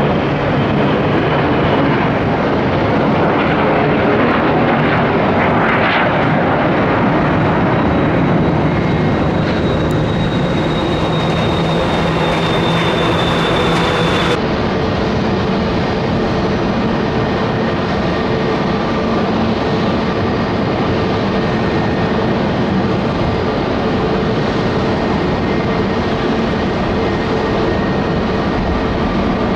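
Jet engine noise of a Gulfstream G450 taking off, with a thin high whine that falls slightly in pitch. About halfway through, it cuts abruptly to the steady jet engine noise of a United Airlines Boeing 757-300 taking off.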